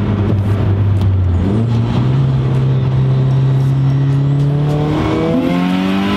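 Nissan Silvia S15 Spec R's built SR20 turbocharged four-cylinder, with a single high-mount turbo, heard from inside the cabin while driving. The engine note holds steady, steps up in pitch about a second and a half in, and climbs steadily from about five seconds in as the car accelerates.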